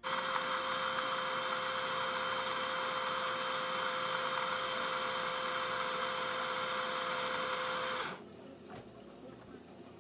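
Leegoal portable bottle blender's small motor running steadily with a high whine as it blends a thick smoothie of frozen fruit, ice cream and almond milk, then cutting off suddenly about eight seconds in at the end of its timed blending cycle.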